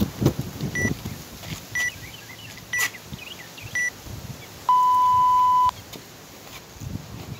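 WOD Proof workout timer app counting down: four short high beeps a second apart, then one long, lower beep lasting about a second that signals the start of the timed workout.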